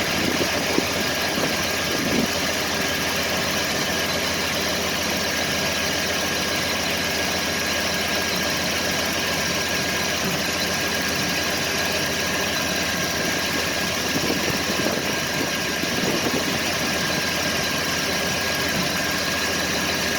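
Camaro IROC-Z's small-block Chevy V8 idling steadily, with a few brief louder thumps or pops near the start and again after the middle: the thumping and popping noises the owner is recording.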